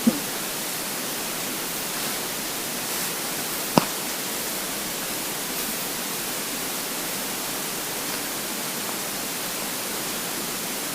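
Steady hiss of the recording with an empty, hungry stomach mostly quiet. A short low gurgle sounds right at the start, and a brief sharp pop about four seconds in.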